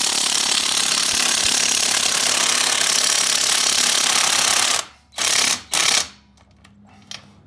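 Impact wrench hammering for nearly five seconds, then two short bursts, on rusted-on nuts that it is not breaking loose.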